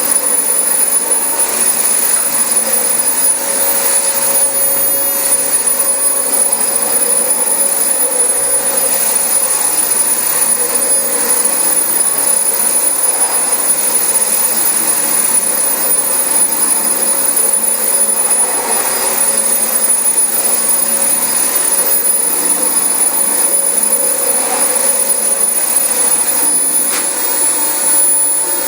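Dyson DC25 ball upright vacuum cleaner running steadily over carpet, its motor giving a continuous rushing noise with a thin high-pitched whine on top.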